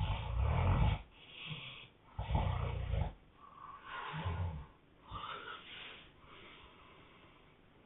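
A man snoring heavily: two loud, rumbling snores about two seconds apart, with softer breaths between and after them, dying down over the last couple of seconds.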